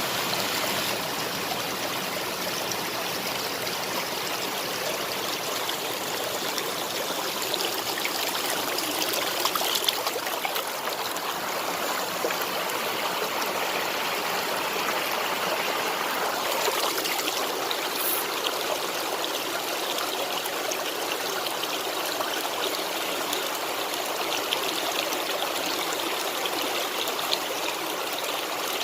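Waterfall of running water splashing steadily.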